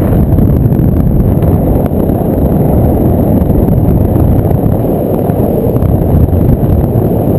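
Loud, steady low rumble of wind buffeting an action camera's microphone in tandem paraglider flight.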